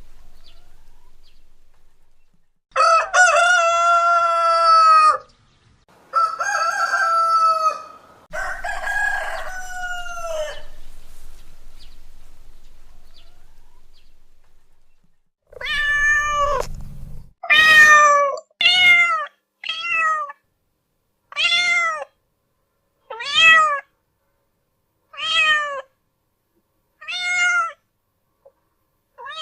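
A rooster crowing about three times, then a cat meowing over and over, eight or nine short meows every one to two seconds.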